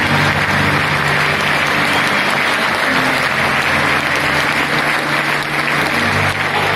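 Ice hockey arena crowd applauding and cheering in a dense, steady wash of noise, with faint low steady tones underneath.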